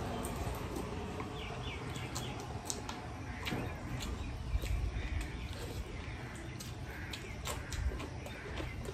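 Eating with the hands: fingers working rice and meat curry on metal plates, chewing and lip smacks, with short sharp clicks scattered throughout. A bird calls a few times about two to three seconds in.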